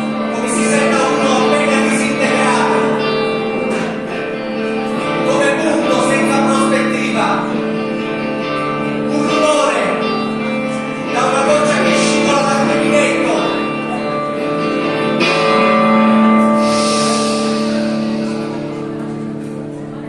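Live band music: a man singing over electric guitar and sustained accompaniment, with a cymbal wash swelling up about three quarters of the way through.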